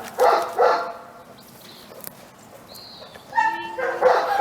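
A dog barking twice in quick succession, then after a lull a longer, higher-pitched vocal near the end.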